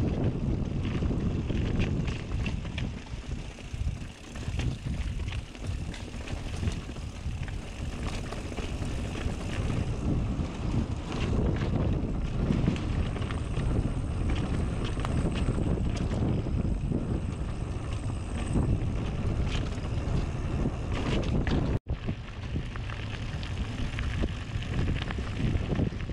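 Wind buffeting the microphone over the rumble of mountain bike tyres on a dirt trail, with scattered clicks and rattles from the bike riding downhill. Near the end the sound cuts out for an instant, then the tyres hiss more on gravel.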